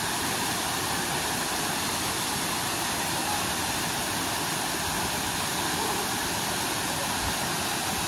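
Waterfall crashing over rocks into a pool, a steady, unbroken rush of water.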